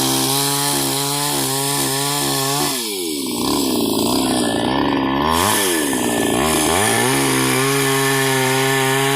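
Chainsaw revving up and held at high speed, dropping back about three seconds in, then revving up and holding again near the end.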